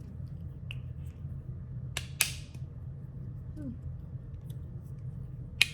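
Titanium fidget slider worked back and forth, its travel damped by slide tape, giving a scattered series of small muted clicks, with two sharper clicks about two seconds in and another near the end.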